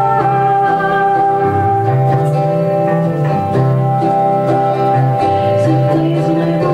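Indie pop band music: guitars over a bass line that moves from note to note, with held notes sounding above them.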